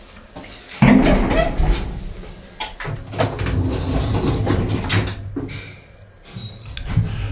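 Passenger elevator's sliding car doors closing with a run of clattering knocks after a floor button press, followed by a steady low hum as the lift runs.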